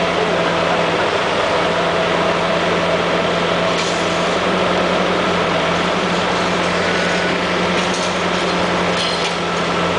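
Diesel engine and hydraulics of a Komatsu PC400 high-reach demolition excavator running steadily under load as its demolition jaws crush concrete, with a few faint cracks of breaking concrete and debris about four seconds in and again near the end.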